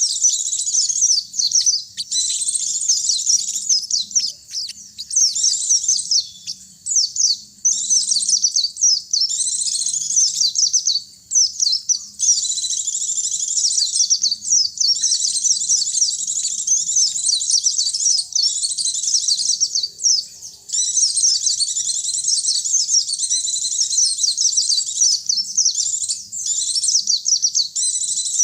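Pleci (white-eye) and sogon (sunbird) songbirds singing a fast, high, unbroken twittering song, with a few brief pauses between long phrases.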